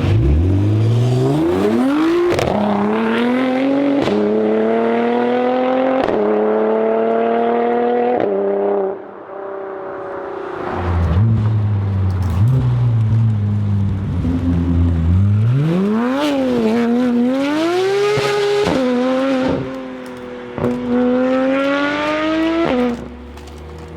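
Car engine accelerating through a run of gear changes, its pitch climbing and dropping back about every two seconds. After a brief lull it revs up and down again.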